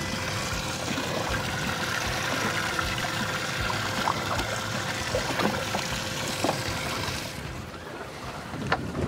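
Open-water boat ambience: small waves lapping at the hull with wind on the microphone and a few light knocks. The hiss thins out about seven seconds in.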